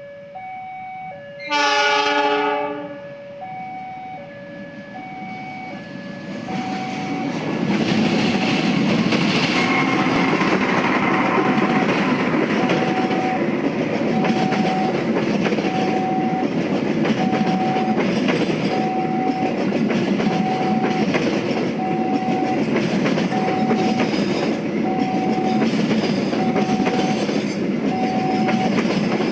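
Train horn sounds once about two seconds in, then a train passes with a steady loud rumble and wheel clatter. Through it all a repeating warning beep sounds about once a second, alternating between two pitches at first.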